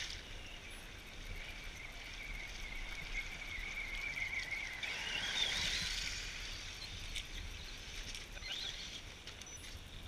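Axial Wraith RC truck's electric motor and drivetrain whining as it drives through a shallow river, with water splashing around the wheels. The whine rises in pitch about four seconds in, and the sound is loudest as the truck passes close by about five to six seconds in.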